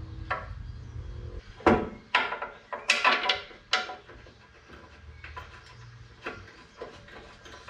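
Irregular metal clanks and knocks with a short ring, loudest in the first four seconds, as a transmission and its mounting hardware are worked into place under a 4WD on a transmission jack. A low steady hum runs underneath.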